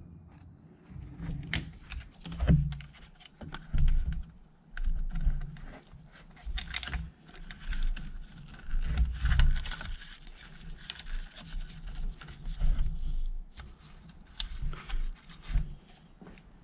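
Hands working a large rubber engine hose onto its fitting: irregular clicks, light knocks and rubber rubbing on plastic.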